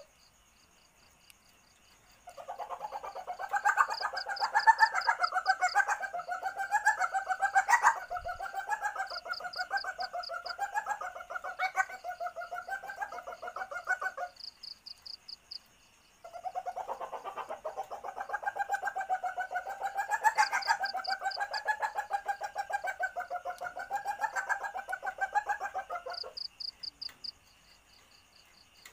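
Female common palm civet in heat calling: two long bouts of rapid, wavering chattering pulses, each about ten seconds, with a short pause between. This is the mating call used as a lure to draw in males. Faint high, pulsed trills run in the background.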